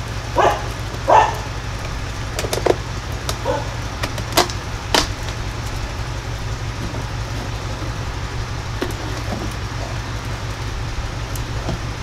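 Corrugated plastic sign panels being handled and slid into a welded metal frame: a few clicks and scrapes in the first five seconds, quieter handling after, over a steady low machine hum.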